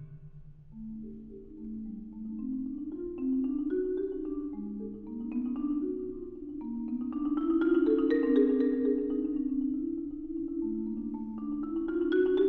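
Solo concert marimba played with four mallets: soft rolled notes and chords in the middle and low register, swelling and fading, then growing louder near the end.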